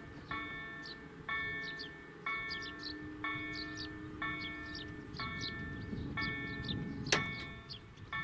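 EDE-1 electronic level-crossing bell ringing about once a second, each strike a bright bell tone, as the EEG-3 barrier drives lower the booms with a low motor hum in the middle. A single sharp knock comes about seven seconds in as the booms come down.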